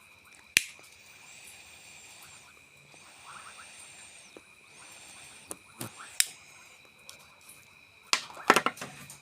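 A pipe is being relit with a lighter. A sharp click, then a soft flame hiss in three spells of about a second and a half each, as the pipe is drawn on. A few more clicks and taps come near the end.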